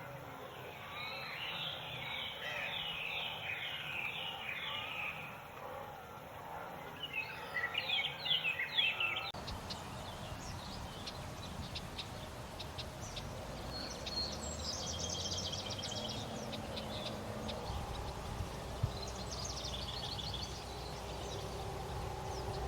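Birds calling: a run of quick repeated chirps through the first nine seconds, then, after an abrupt change in the background noise, two spells of high trilling in the second half.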